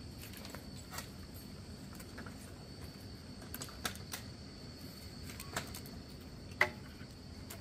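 Sparse light clicks and taps of split bamboo strips being handled and interlaced by hand on dirt ground, one sharper click near the end, over a faint steady high whine.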